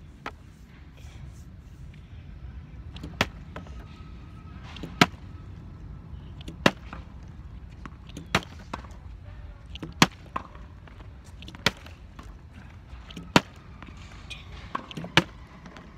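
A partly filled plastic water bottle being flipped and landing on a hard court surface. There are nine sharp landing thuds, evenly spaced about every second and a half to two seconds.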